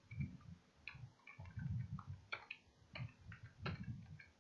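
Computer keyboard being typed on: a run of faint, irregular key clicks.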